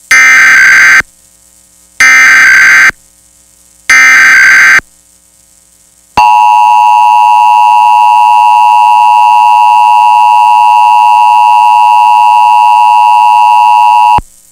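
Emergency Alert System test: three one-second bursts of screeching digital data warble (the SAME header), then the steady two-tone EAS attention signal sounding for about eight seconds before cutting off abruptly.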